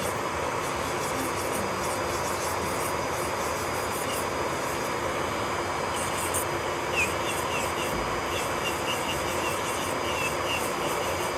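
Electric nail drill (e-file) running steadily against the nail, grinding or filing, with faint small ticks in the second half.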